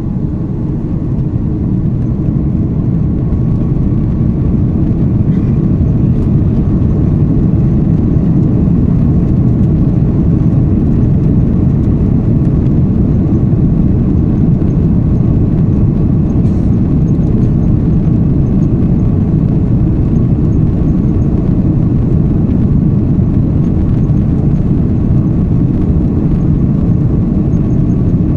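Cabin noise inside an Airbus A330-243 taxiing, its Rolls-Royce Trent 700 jet engines running: a steady low rumble that grows louder over the first few seconds, then holds level.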